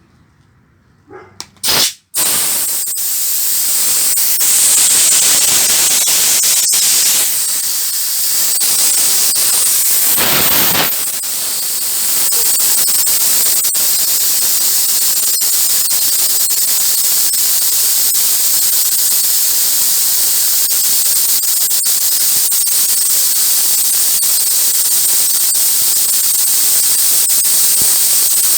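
Compressed air from an air compressor and its add-on auxiliary tank blowing out through the air line, a loud steady hiss that starts with a couple of clicks about two seconds in. The tanks are being drained at a regulator setting of about 40–50 psi to time how long the stored air lasts.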